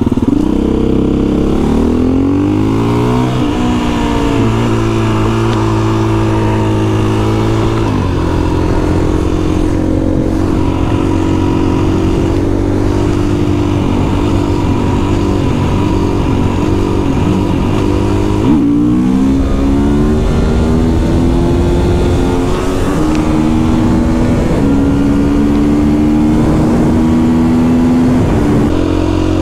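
Husqvarna FE 350 single-cylinder four-stroke enduro motorcycle engine under way. The revs climb over the first few seconds, then change with gear shifts into mostly steady cruising, with a dip and another climb about two-thirds of the way through.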